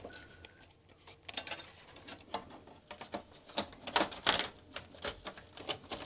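Irregular clicks, taps and small knocks of plastic case parts and screws being handled and fitted while the Amiga 1200 computer is put back together. The clicks come unevenly, thicker in the second half.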